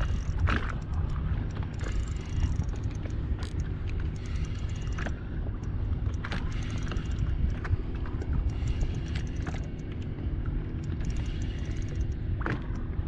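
Steady low rumble of wind and water against the hull of a personal watercraft, with scattered clicks and knocks as a spinning reel is worked against a hooked fish.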